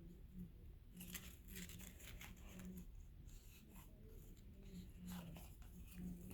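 Faint rustling and light clicks of baseball trading cards being handled and slid past one another, starting about a second in.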